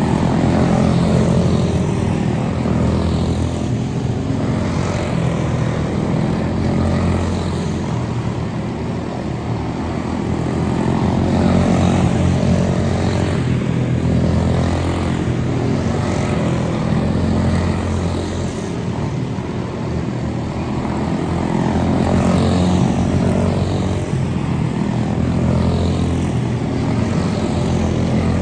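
Quarter midget race cars with small single-cylinder Briggs & Stratton Animal engines running laps together in a feature race. The drone swells and fades every few seconds as the pack passes.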